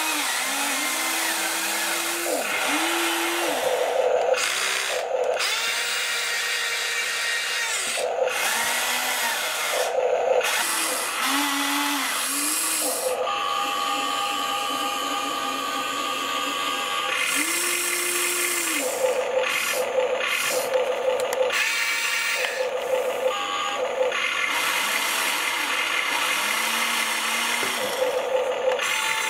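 Electric motors and gearboxes of a Huina 1593 RC excavator whining as the boom, arm and claw grab are worked, in many short runs of a second or two, each rising in pitch as a motor starts and falling as it stops.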